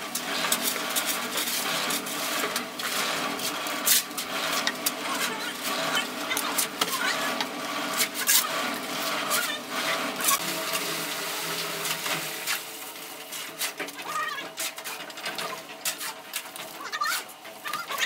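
Concrete work at a building site: scraping and knocking of shovels and concrete, over a steady machine hum from the drum concrete mixer that fades about twelve seconds in. Chickens cluck.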